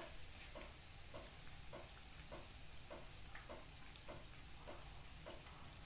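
Half-cake dough frying in oil in a pan: faint sizzling with a steady run of small pops, about three a second.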